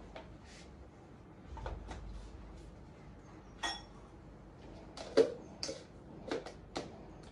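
Knocks and clicks of a mixer-grinder jar being handled: its lid put on, then the jar set onto the grinder's base with a sharp knock about five seconds in, followed by a few lighter clicks.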